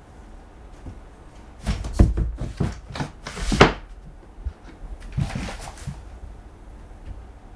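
Knocks and thumps of a large cat clambering on a cardboard scratching lodge: a quick run of them a couple of seconds in, then a shorter run near the six-second mark.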